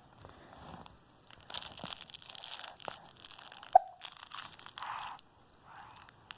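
One sharp hiccup a little past the middle, a sudden click with a short pitched blip, between patches of soft crackly noise.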